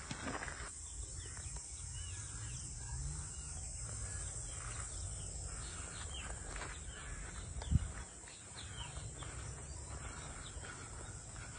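Outdoor ambience: small birds chirping in short scattered calls over a steady low rumble, with a single sharp knock about eight seconds in.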